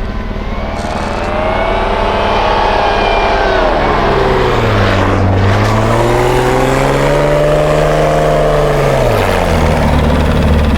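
Off-road vehicle engine revving under load, its pitch dipping about four seconds in, climbing again, then falling near the end.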